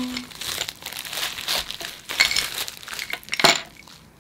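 Plastic bubble-wrap packaging crinkling and rustling as photo prints and a metal frame are handled, with a sharp crackle about three and a half seconds in.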